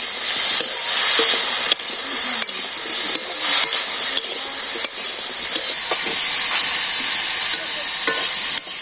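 Drumstick pieces frying in oil in a pan: a steady high sizzle, with scattered clicks and scrapes of a spatula stirring against the pan.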